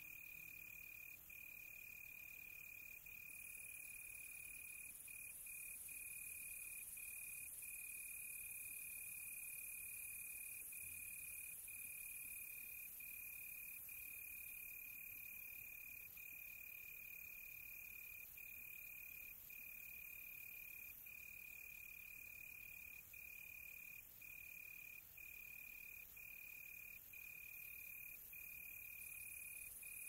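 A cricket trilling steadily at one high pitch, broken by brief gaps every second or so, with a faint high hiss above it.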